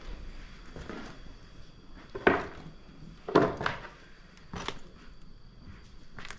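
A few footsteps and scuffs on a concrete floor scattered with debris and wood scraps: four short, sharp steps, the loudest about two and three and a half seconds in.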